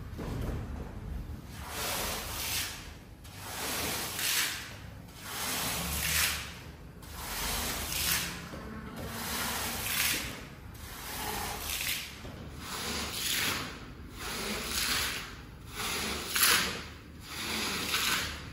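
A hand cleaning tool being drawn across a wet shag rug in repeated strokes, about one every two seconds.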